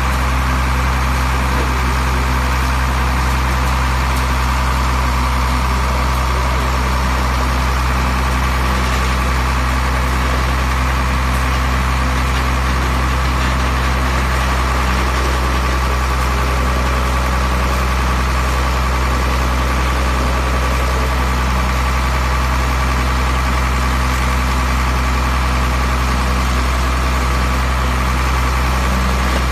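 Wood crusher machine running with a steady, loud low drone and a constant hum, unchanging throughout, with no separate knocks or impacts standing out.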